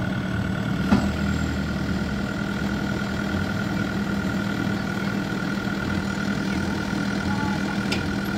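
JCB 3DX backhoe loader's diesel engine running steadily at low revs while the loader holds a concrete pipe, with a steady high-pitched whine over it and a single sharp knock about a second in.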